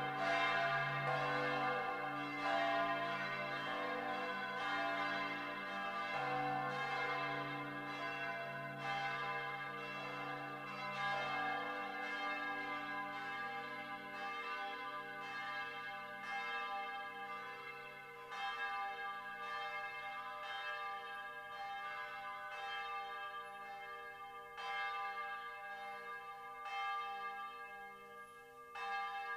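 Church bells ringing together as a peal, several bells striking in an uneven pattern about once or twice a second, their tones ringing on and overlapping.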